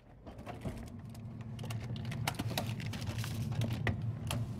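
A freezer being opened and rummaged through for a container: a quick run of small clicks and knocks, with a low steady hum that grows louder.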